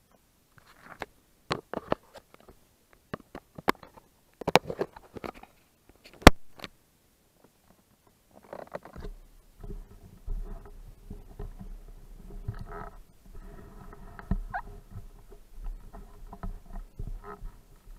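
Handling noise of an action camera in its waterproof housing: a series of sharp clicks, knocks and rubbing as the camera is touched and adjusted. About halfway through this gives way to a faint steady low hum with scattered knocks, muffled by the housing.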